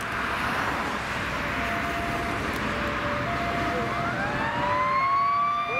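Fire truck siren winding up, its pitch rising steadily from about four seconds in, over passing road noise. A fainter two-pitch hi-lo tone alternates underneath.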